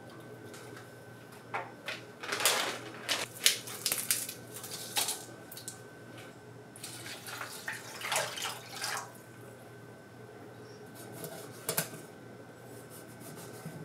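Liquid poured in several short splashes into a stainless steel tray of marinade (soy sauce over ginger, green onion and Sichuan pepper), with a sharp click near the end.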